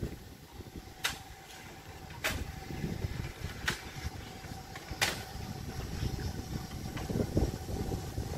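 Steam locomotive approaching at low speed: a low rumble with four sharp clicks about a second apart.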